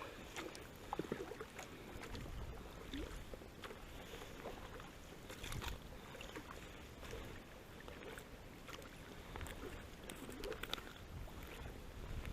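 Water splashing and dripping around a small boat, with scattered light knocks and clicks, as a gill net is worked along.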